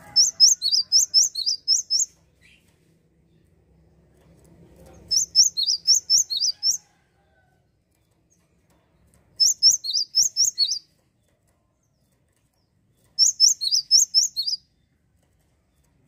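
Cinereous tit (gelatik wingko) singing four short bursts of quick, sharp, high whistled notes, alternating high and lower in a repeated two-note phrase at about four notes a second. Each burst lasts one to two seconds, with pauses of a few seconds between.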